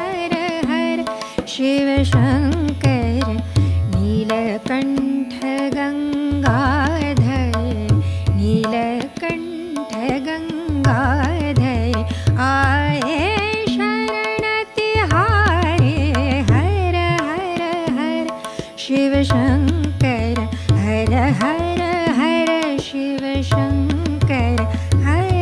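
Indian classical raga singing. A woman's voice moves through a melody full of gliding, ornamented turns, accompanied by tabla strokes with deep bass and a steady tanpura drone.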